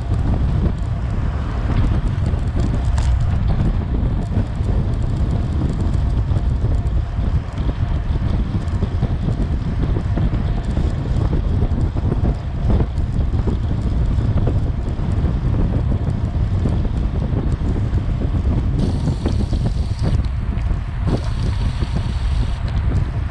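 Wind buffeting the microphone of a camera on a road bike riding at about 20 to 25 mph: a steady low rumble.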